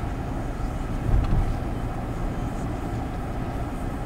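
Wind rumbling on the microphone while moving at speed: a steady low noise with a brief louder gust about a second in.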